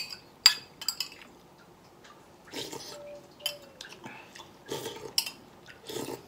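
A metal spoon clinks and scrapes against a small bowl as food is scooped up, with a few sharp clinks in the first second. This is followed by several short eating and slurping noises.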